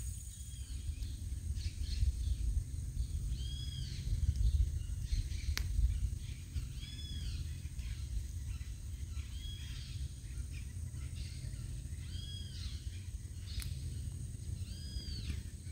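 A bird calling five times, about every three seconds, each call a short note that rises and falls, over a low rumble and a steady high hiss.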